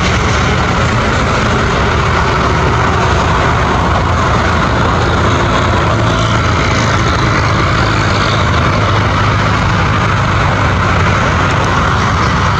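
Boeing 767-300 freighter's twin turbofan engines running steadily at low thrust as the jet taxis and lines up on the runway.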